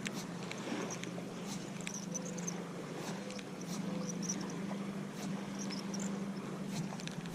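A steady low motor hum runs throughout, with repeated short, high chirps of small birds and a few scattered clicks.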